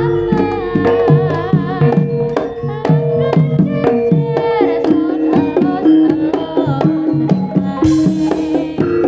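Javanese gamelan music for a jaranan horse dance: fast kendang hand-drumming over ringing pitched metal percussion, with a wavering melodic line about a second in. A bright cymbal-like crash comes near the end.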